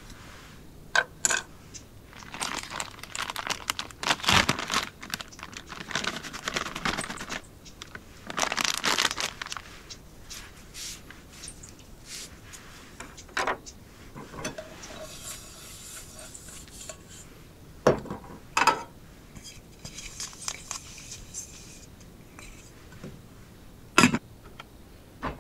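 Plastic packaging crinkling as a packet is handled, then a paper towel rubbing inside a small metal camping pot, with a few sharp knocks; the loudest is a clack near the end as the lid is set on the pot.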